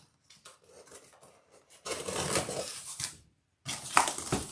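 A kitchen knife slicing through the tape and cardboard of a shipping box, and the flaps being pulled open: two bursts of scraping and rustling cardboard, with a couple of sharp clicks near the end.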